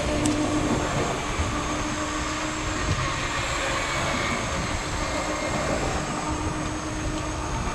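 Wind buffeting the microphone and sea chop against a small boat's hull, with a steady motor hum underneath that is strongest for the first three seconds.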